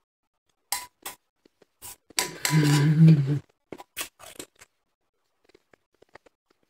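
Snow-type crushed ice crunched between the teeth in short crackly bites, thinning to faint ticks in the second half, with a brief spell of voice over the chewing around two to three seconds in.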